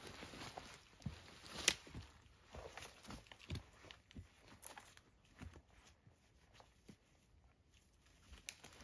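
Footsteps crunching on dry leaf litter and twigs, with irregular snaps and rustles, loudest at first and growing fainter after a few seconds as the walker moves off.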